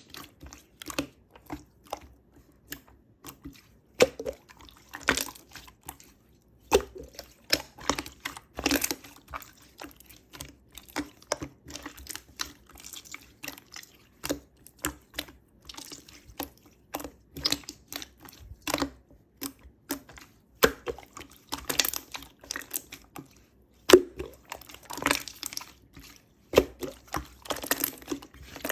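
Purple slime squished and pressed by hand, giving an irregular run of sharp clicks and small pops with short pauses between handfuls.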